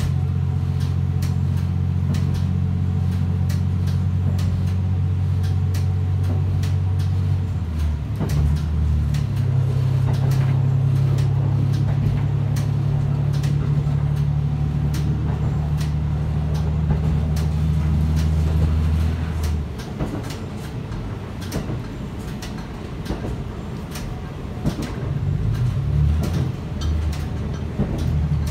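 Diesel railcar's engine running under power, heard from inside the front of the car as a steady low drone. The drone changes pitch about eight seconds in and falls away to a quieter rumble about twenty seconds in as the power is eased, picking up again near the end. Light clicks from the running gear and the car body come through throughout.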